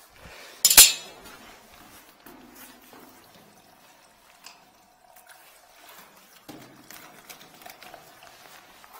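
A single sharp metallic clank about a second in, followed by faint scattered knocks and handling noise.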